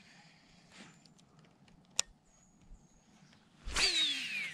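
A sharp click about two seconds in. Then, near the end, a cast with a baitcasting reel: a sudden whoosh, followed by the spool's whir falling steadily in pitch as it spins down.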